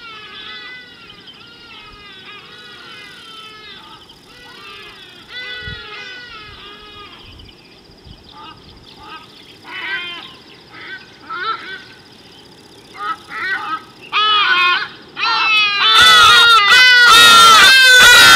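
Birds calling: many short arched notes overlap in a busy chatter. The calls come in louder bouts from about halfway through and become very loud and dense near the end.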